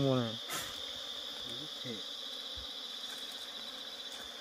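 Steady high-pitched drone of insects. A brief voice sounds at the very start.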